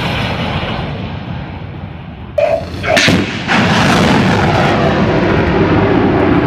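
Military rocket launches. A launch blast fades away over the first two seconds. About two and a half seconds in comes another sudden blast, which settles into a steady, loud roar of rocket exhaust from about three and a half seconds on.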